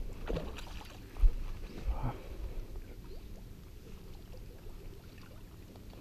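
Water splashing and lapping at the side of a boat, with a few dull knocks in the first two seconds, then quieter lapping.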